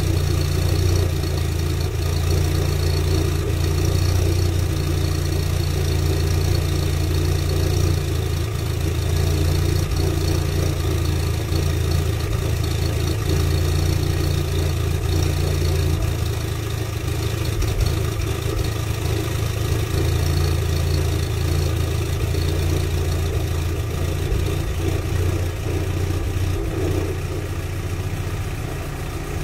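VW 1.6-litre BSF petrol engine idling steadily through a decat exhaust with the catalytic converter removed, heard at the tailpipe. The low, even idle drops slightly in loudness near the end.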